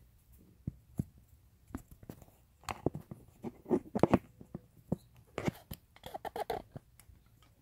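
Scattered clicks, knocks and rustling as a handheld camera is handled and fitted back onto a tripod, with the busiest knocking about halfway through.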